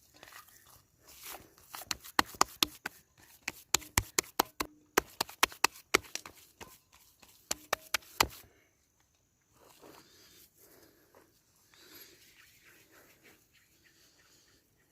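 Runs of sharp, crisp chopping knocks, irregular and about three to four a second, which stop about eight seconds in. Softer, faint rustling and scraping follows.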